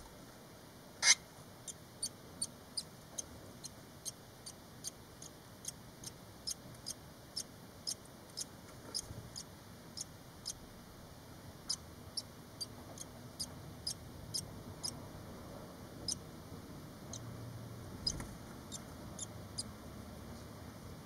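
Barn swallow nestlings about five days old peeping: thin, high squeaks about twice a second. There is a sharp click about a second in, and the peeps pause briefly near the end before starting again.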